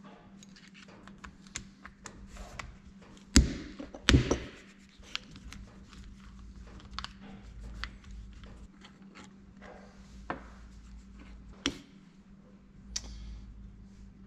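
Metal tools and small parts being handled and set down on a workbench while bolts are backed out of a cast-iron hydraulic valve body: scattered clicks and taps, with two sharp knocks a little over three and four seconds in.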